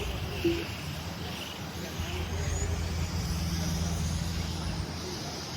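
1/10-scale electric on-road RC race cars running laps in a pack, their motors whining and tyres hissing as they pass, over a steady low hum. One short sharp tone sounds about half a second in.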